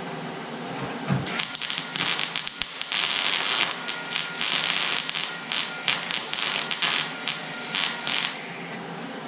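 Arc welding on the sheet-metal floor of a truck cab: the arc crackles and sputters in a string of short welds with brief pauses. It starts about a second in and stops near the end.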